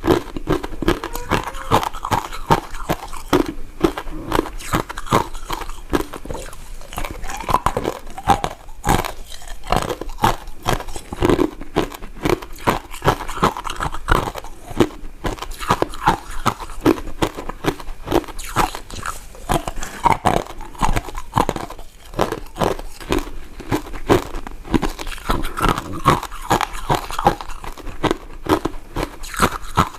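Close-up chewing and biting of mint candies, a steady run of crunches and wet mouth clicks, several a second.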